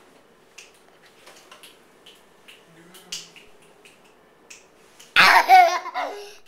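A few faint clicks and small handling sounds close to the microphone, then about five seconds in a young child breaks into loud, high-pitched squeals, the pitch bending up and down.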